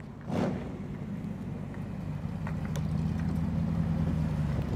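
Car engine running with a steady low rumble, growing a little louder about two and a half seconds in. A brief noise burst just after the start.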